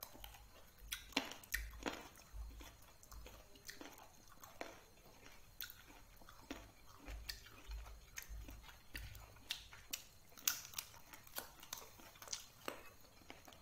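A person chewing and biting food close to the microphone: irregular crunchy clicks and mouth sounds, with occasional soft low thumps.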